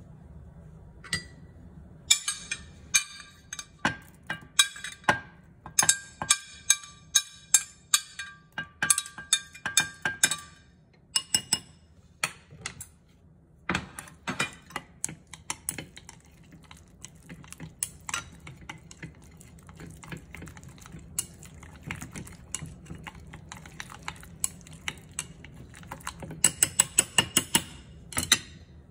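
Wooden chopsticks stirring batter in a glass bowl, clicking rapidly against the glass in runs of quick strokes with short pauses, and a fast flurry near the end.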